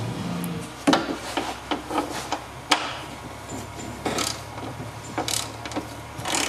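Irregular metallic clicks and clatters from a hand tool and loose bolt hardware being handled at a car door frame. The loudest knocks come about a second in and again near three seconds, with lighter clinks spread between. The tail of guitar background music ends about a second in.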